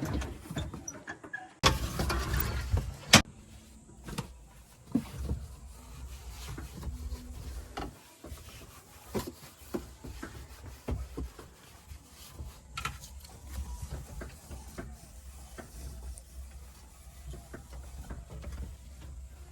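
Low engine rumble of heavy machinery with scattered knocks and clatter, and a loud burst of clattering with sharp knocks about two seconds in.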